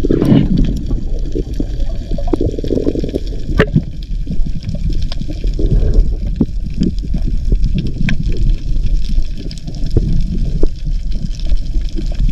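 Water sound recorded underwater by a dive camera: a steady, muffled low rushing with scattered small clicks.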